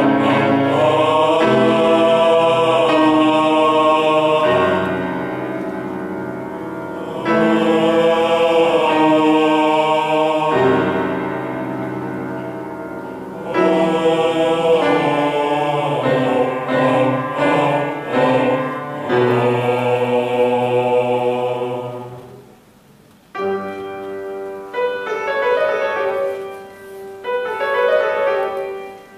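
Male vocal ensemble singing long held chords in phrases of a few seconds each. About three-quarters of the way through, the voices drop away and a piano takes over with rhythmic repeated chords.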